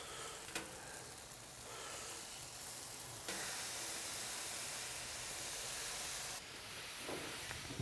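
Barbecue sauce sizzling as it is brushed onto chicken wings on the hot grates of a gas grill, a steady hiss that gets louder from about three to six seconds in.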